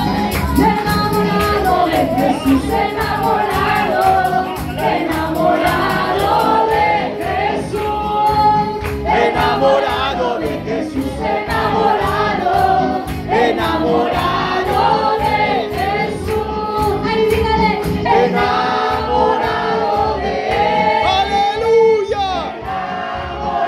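Live Christian worship music: an upbeat chorus sung by several voices over a band with a fast, steady drum beat.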